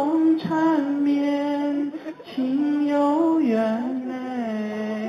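A man singing a slow Chinese ballad solo into a microphone, holding long drawn-out notes that step down in pitch, with a short break between phrases about two seconds in.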